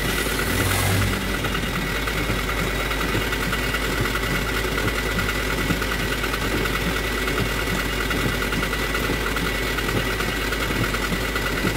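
Toyota Dyna 130 HT truck engine idling steadily, heard from inside the cab.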